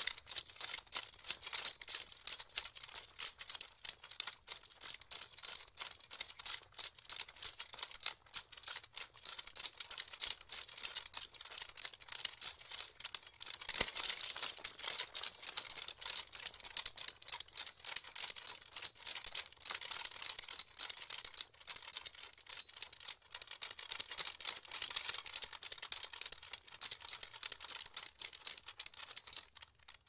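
Metal saddle-and-harness hardware and spurs jingling and rattling in a fast, near-constant series of sharp metallic clinks, cutting off just before the end.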